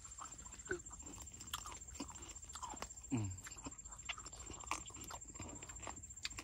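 Eating sounds of fried chicken drumsticks being bitten and chewed: wet chewing and smacking with scattered short clicks, and a few brief falling vocal sounds, the clearest about three seconds in.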